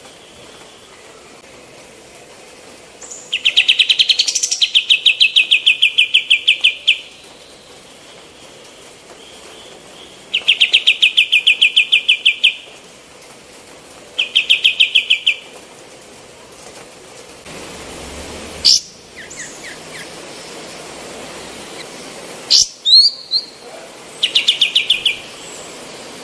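A female kapas tembak bird sings in bursts of rapid, evenly spaced chattering notes, each trill lasting one to four seconds, with several pauses between them. Near the end come a few sharp sweeping whistles.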